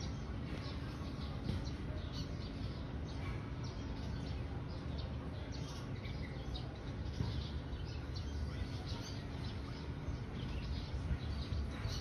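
Birds chirping in many quick, short calls over a steady low background noise.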